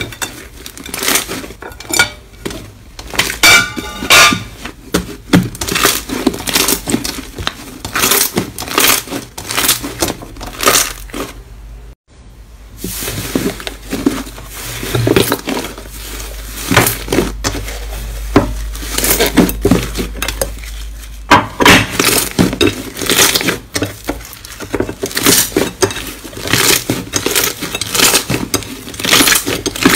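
Hands squeezing and pressing slime, which gives a dense run of sticky pops, clicks and crackles as the air pockets in it burst. There is a short break about twelve seconds in.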